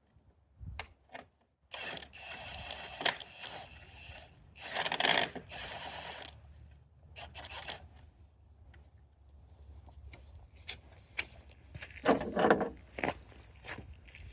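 Scraping, clinking and clicking of hand tools and parts being worked: a long scraping stretch early on, scattered sharp clicks, and another scrape-and-clatter near the end.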